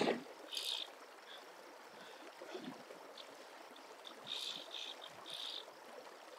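A splash at the very start, then faint running river water with a few short high buzzes from a fly reel's ratchet drag as a hooked Atlantic salmon pulls line.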